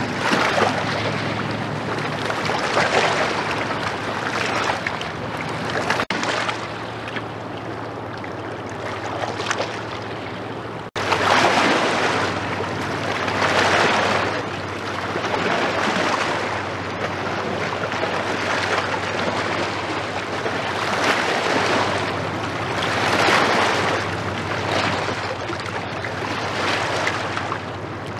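River waves washing against the bank in rolling surges every couple of seconds, over the faint steady low hum of a passing inland cargo ship's diesel engine. The sound breaks off abruptly twice, about 6 and 11 seconds in.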